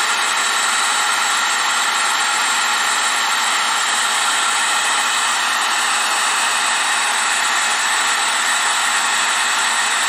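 Heat gun running steadily: a continuous hiss of blowing air with a faint fan whine in it, as it heats a solder-seal heat-shrink butt connector to melt its low-temperature solder.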